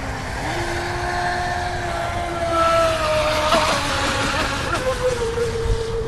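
Pro Boat Widowmaker radio-controlled speedboat running fast across the water: a steady electric motor whine that steps up in pitch about half a second in, then slowly drops, over a rushing noise.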